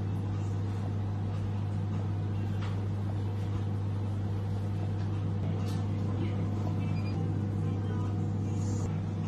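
Steady low machine hum at an even level, with a few faint clicks.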